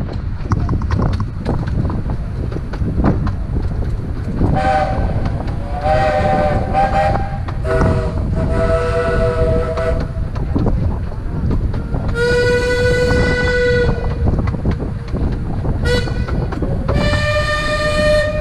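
15-inch-gauge railway locomotive whistles sounding over the steady rumble and clatter of a running train. Two chime whistle blasts of several notes together come about four and eight seconds in. A longer single-note blast follows around twelve seconds, then a short toot and another blast near the end.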